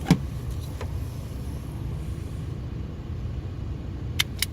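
Steady low background rumble with a few sharp clicks from hand work on a car's wiring harness. The loudest click comes just after the start, and a quick pair comes near the end.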